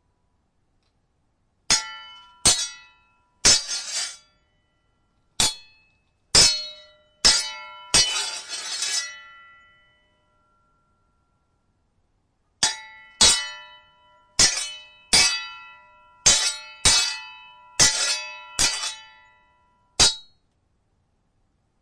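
Sword blades clashing, about sixteen sharp ringing metal strikes in two flurries separated by a pause of about three seconds. One clash near the middle trails into a second-long scrape of blade sliding along blade.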